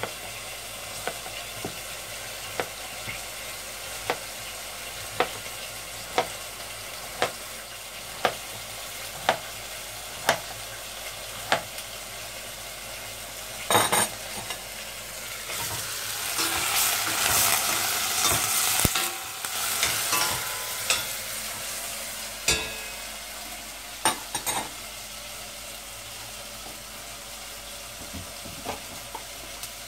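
Knife cutting a peeled courgette into chunks on a plastic cutting board, a sharp tap about once a second, over a steady sizzle of meat frying in a pan. About halfway through, a louder rushing noise rises for a few seconds.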